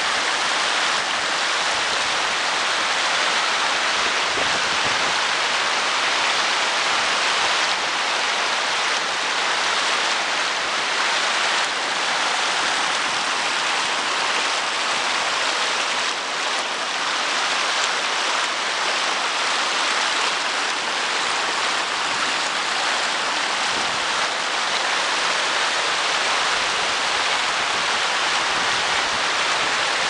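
River water rushing and splashing down the stone ledges of a small rocky waterfall: a steady, unbroken rush.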